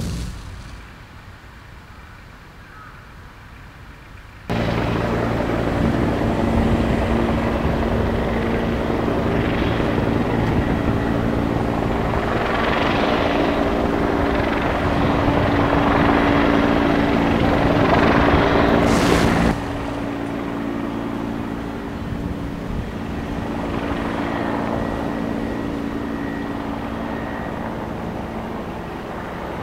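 Bell 412EP police helicopter flying, a steady rotor-and-turbine drone carrying several steady low tones. It comes in suddenly a few seconds in after a faint hiss, and drops sharply in level about two-thirds of the way through.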